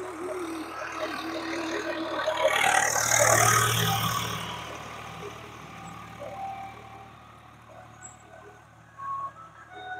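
Swaraj 834 XM tractor's diesel engine running under load at about 1500 rpm while pulling a disc harrow through the soil. It grows louder as the tractor passes close, about three to four seconds in, with a rush of noise, then fades as it moves away.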